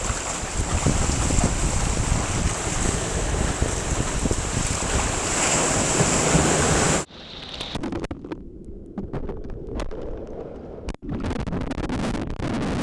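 Wind buffeting the microphone of a kayak's bow-mounted camera, with water splashing and sloshing around the bow; it cuts off abruptly about seven seconds in. A quieter stretch of scattered clicks and knocks follows, then steady noise again near the end.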